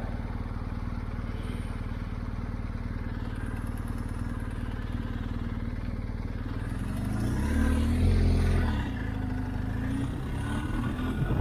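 BMW R1250 GS Adventure's boxer-twin engine idling steadily, then its revs rise and fall about seven seconds in and climb again near the end.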